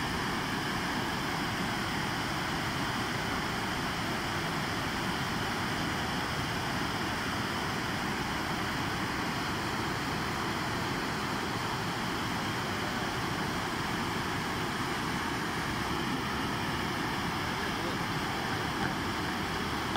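Fountain water falling as a circular curtain from a raised rim and splashing into the basin, a steady rushing splash.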